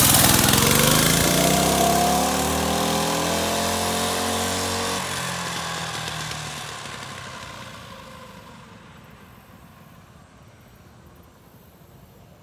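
Coleman 196cc mini bike's single-cylinder four-stroke engine revving up as it pulls away, its pitch rising over the first couple of seconds, then fading steadily over the next several seconds as the bike moves off into the distance.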